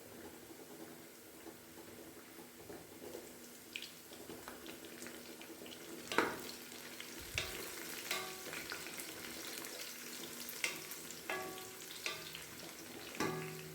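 Food sizzling as it fries in a pan while it is stirred. Sharp clinks and knocks of a utensil against the pan come in about four seconds in and recur through the rest.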